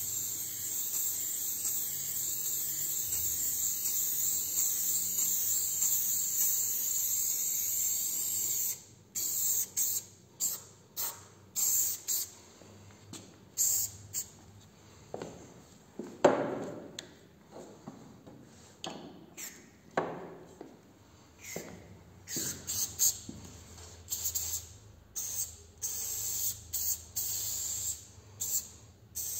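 Aerosol spray paint can hissing in one long continuous spray for about eight seconds, then in a string of short sprays with pauses between them.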